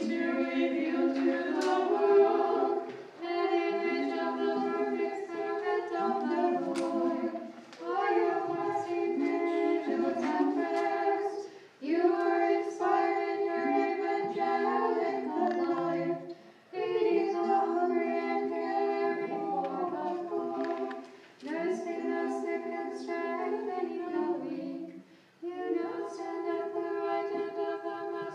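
Small choir chanting Orthodox prayer service music a cappella in several parts, in phrases of about four seconds with short breaks for breath between them.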